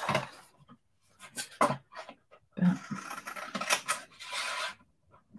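Paper and small crafting tools being handled: scattered rustles, scrapes and light clicks.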